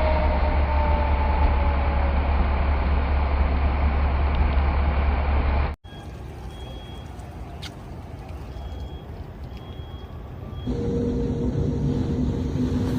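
Loud storm noise of wind and rain buffeting the microphone, cut off abruptly about six seconds in. A quieter stretch follows with short high beeps every second or so, and near the end a steady low hum comes in.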